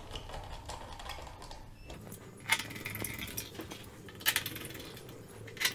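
Small screws being driven into a laptop's base cover with a screwdriver: faint handling noise with three sharp metallic clicks.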